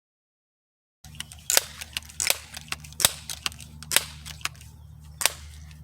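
Crosman 1377 pump air pistol being pump-charged: starting about a second in, five sharp clacks of the pump lever roughly a second apart, with fainter clicks between, building pressure for a shot.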